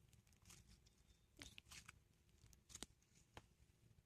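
Near silence with a few faint, scattered clicks and taps from small objects being handled.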